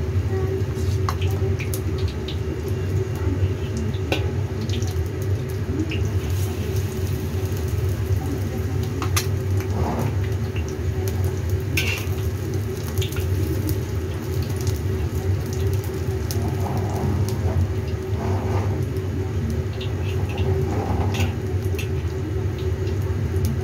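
Battered tempe deep-frying in hot oil in a wok, a steady sizzle scattered with sharp crackles and pops of spattering oil, over a steady low hum.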